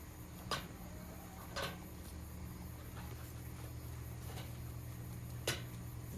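Three sharp knocks, about half a second in, just after a second and a half, and about five and a half seconds in, over a steady low hum.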